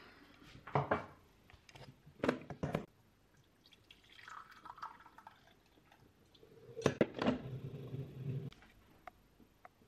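A few sharp knocks of kitchenware, then a hot drink poured from a glass jug into a mug for about a second and a half, about four seconds in; a couple more knocks follow near seven seconds.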